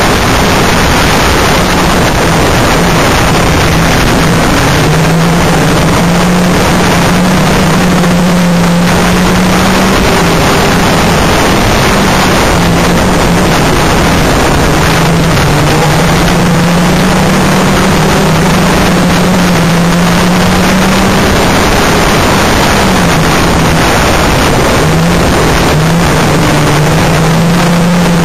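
Banger racing car's engine running hard, heard from inside the car: its pitch climbs and dips every few seconds as it accelerates down the straights and eases through the bends, over a constant loud rush of wind and road noise.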